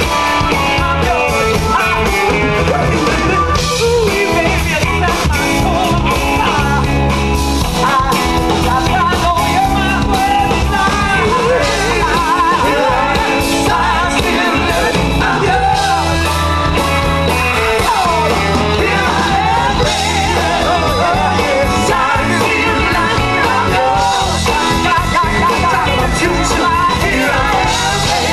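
Live band performing a song: several vocalists singing over drums, electric guitar, bass and keyboards.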